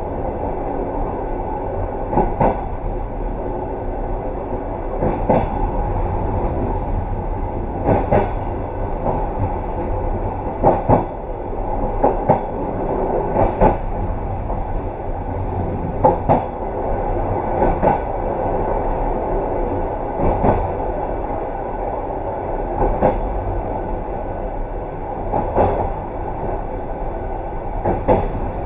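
Train running on jointed track: a steady rumble with wheel knocks at the rail joints every two to three seconds, some coming in close pairs.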